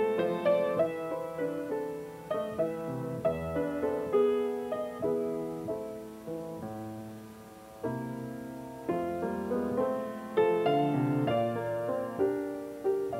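Background piano music: a slow melody of struck notes, each fading away after it is played.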